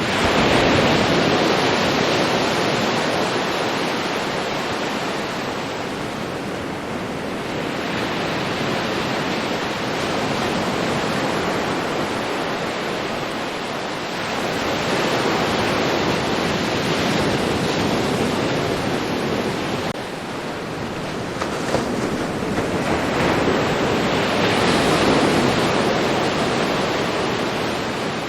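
Ocean waves breaking and washing on a beach in a continuous rush, swelling with each wave, about three big surges.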